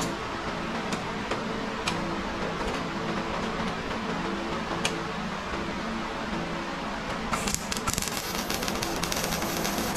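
A few light metal clicks as clamps are set on a rocker panel, then about seven seconds in a MIG welder strikes an arc and crackles steadily as it welds the new rocker panel to the body.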